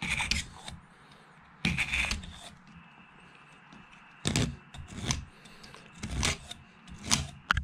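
Pocket knife blade worked against the top of a steel axe head and the end of the wooden handle standing out of its eye, making about half a dozen short separate scrapes and clicks.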